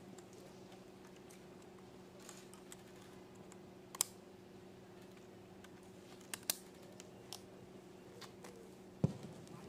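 A handful of sharp, isolated clicks and knocks, the loudest a thud about nine seconds in, over a steady low hum.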